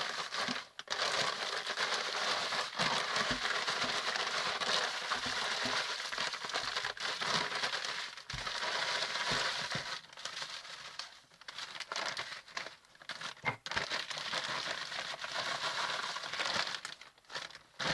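Plastic bag of aspen bedding being handled, crinkling and rustling in irregular spells with short pauses.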